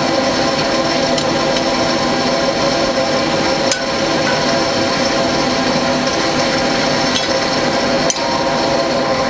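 A small electric motor running steadily with a constant whine, with two sharp clicks, one just under four seconds in and one about eight seconds in.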